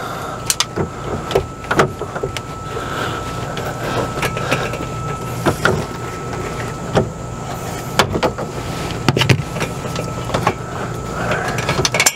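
Scattered clicks, knocks and rustles of hands working in a cramped floor opening among wires, cutting out a plastic tee on a blue PEX water line, over a steady low hum. A faint high whine stops near the end.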